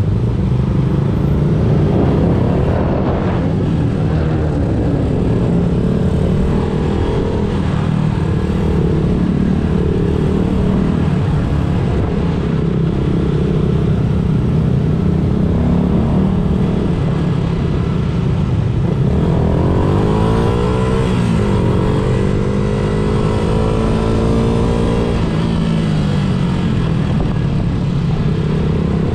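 Motor vehicle engines running continuously, their pitch wandering up and down, with one engine's pitch dipping and climbing again about twenty seconds in.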